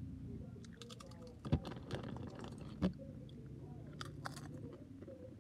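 Close-up chewing and crunching, a run of small crisp clicks, with two louder knocks about one and a half and three seconds in.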